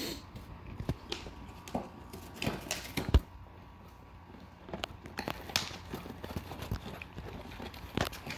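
A chihuahua biting and tearing at a cardboard box: irregular crunches, rips and knocks of cardboard, the loudest a sharp knock about three seconds in.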